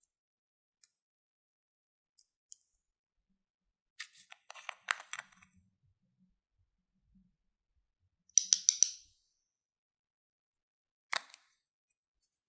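Slime and makeup being handled, giving scattered sharp clicks and taps in near-silence: a cluster about four to five seconds in, a quick run of bright clicks about eight and a half seconds in, and a single click near the end.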